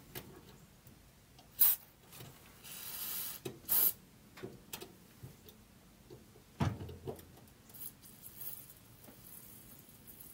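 Spray hissing in short bursts as a fuel line is blown out to clear it: a brief hiss, a longer one of about a second, then another brief one. Handling clicks and a dull thump about two-thirds of the way through follow.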